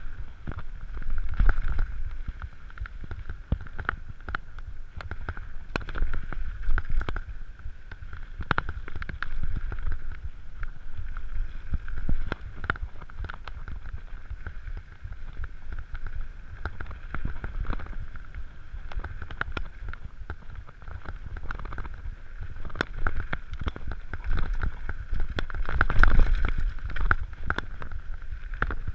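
Mountain bike riding fast down a dirt trail: tyre rumble on the dirt and wind buffeting the microphone, with frequent rattles and knocks from the bike jolting over bumps, heaviest near the end. A steady tone runs underneath.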